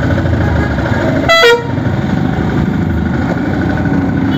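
A motorcycle running steadily on the road, engine and wind noise together, with one short, loud vehicle-horn toot about a second and a half in.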